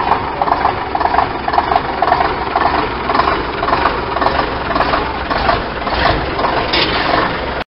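Leyland Titan PD2/24 double-decker bus's diesel engine idling with a regular pulsing beat, about two to three a second. The sound cuts off suddenly near the end.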